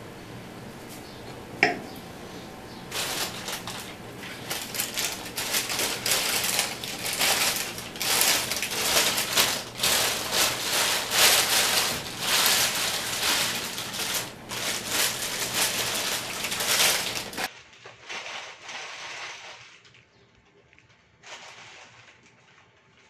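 Dense crackling and fizzing from an egg soaking in a glass of vinegar: carbon dioxide bubbles popping as the acetic acid dissolves the calcium carbonate shell. It starts about three seconds in and cuts off suddenly, followed by fainter rustling of a plastic bag.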